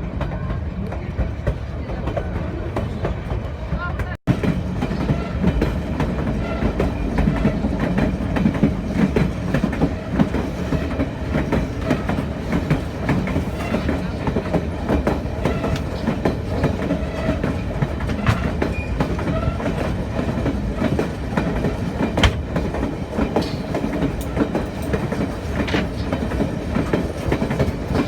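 Narrow-gauge passenger train rolling along the track, heard from aboard the car: a steady rumble with wheels clacking over the rail joints. The sound cuts out for an instant about four seconds in.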